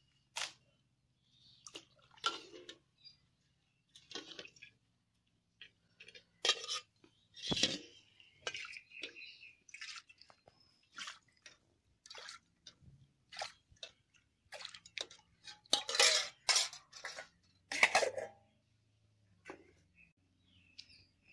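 Steel ladle clanking and scraping against aluminium pots as boiled rice and water are ladled from the pot into a bowl: a string of sharp metallic knocks, loudest near the end.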